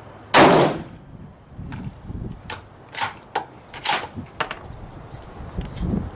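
A single .308 rifle shot from a Thompson Center Compass bolt-action rifle firing PMC 147-grain ammunition, loud and with a brief ringing tail. About a second later come several sharp metallic clicks and clacks, typical of the bolt being worked to eject the case and chamber the next round.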